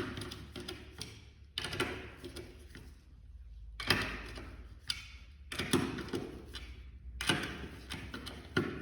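A preset torque tool clicking and ratcheting as bolts on a stainless steel tray's ring cover are tightened, with small metal knocks. The sound comes in about five bursts of about a second each, with short pauses between them. The click signals that each bolt has reached the set torque.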